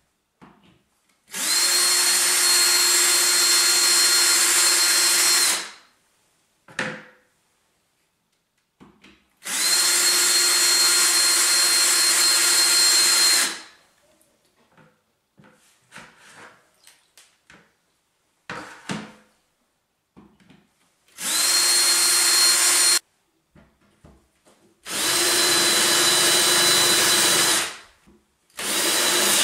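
Cordless drill boring into hard porcelain wall tile, running at a steady whine in four runs of two to four seconds each, with a fifth starting near the end; small handling clicks fall between the runs. The hard porcelain resists the ordinary bit, the kind of tile that calls for a diamond bit.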